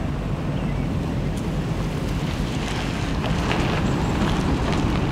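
An SUV driving slowly along a dirt track: steady low engine rumble, with crackling from the tyres on the track growing in the second half.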